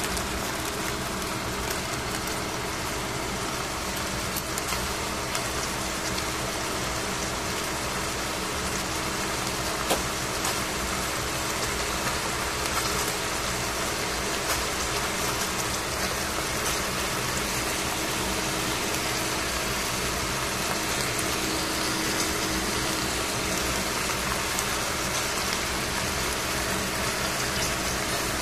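Steady whooshing machine noise with a low hum, unchanging throughout, with a few faint clicks of handling.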